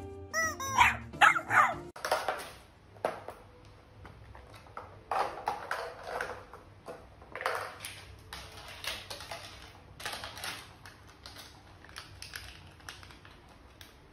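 A rubber chicken toy squawking several times in wavering honks over the first two seconds. After that comes a scatter of short, soft, irregular sounds from a small puppy playing on a tiled floor, with the loudest about halfway through.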